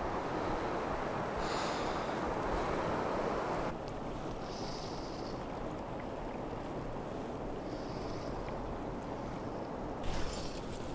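Steady rush of river water flowing past rocks, a step quieter about four seconds in.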